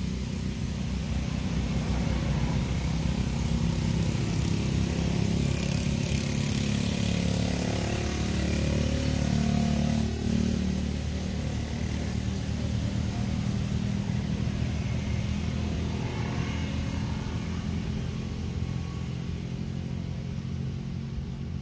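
An engine running steadily, a little louder in the first half.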